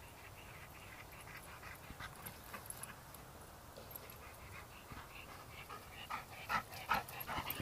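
Dog panting in quick short breaths, getting louder near the end as the dog comes close.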